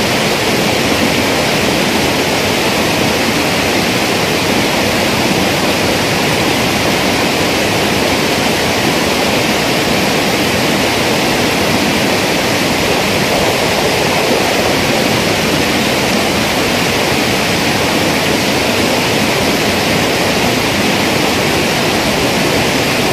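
Fast-flowing irrigation canal water rushing steadily, a loud, even noise that does not change.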